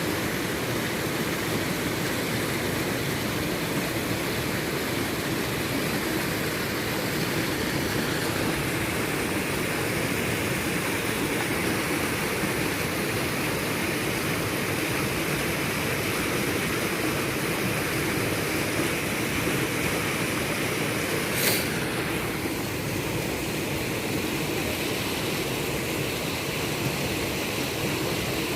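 Waterfall rushing, a steady loud wash of falling water with no change. A single short click comes about three-quarters of the way through.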